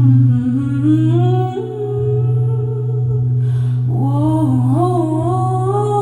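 A woman's wordless sung vocal, humming and sliding in pitch, over a steady low drone, with a quick breath taken about three and a half seconds in.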